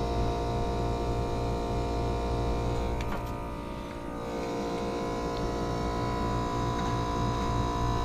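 ClimateMaster geothermal heat pump running with its compressor on second stage: a steady hum with several steady tones over it, dipping slightly about halfway through.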